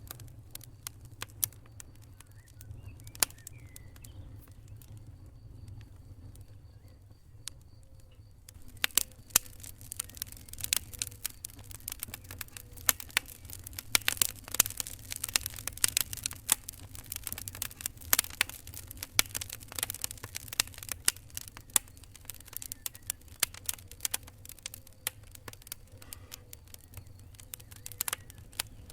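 Fire crackling: a few scattered pops at first, then from about a third of the way in a dense run of snaps and pops, over a low steady rumble.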